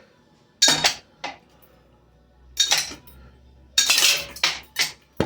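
Hampton Bay ceiling fan being smashed: a series of sharp metallic clanks and clatters, some ringing briefly, coming in uneven bunches about every second.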